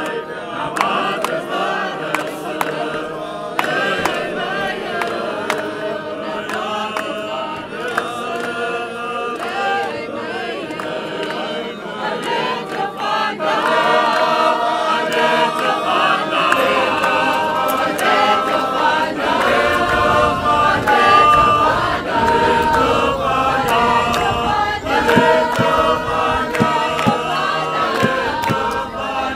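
A choir singing sustained, many-voiced lines. A low bass part comes in a little over halfway through.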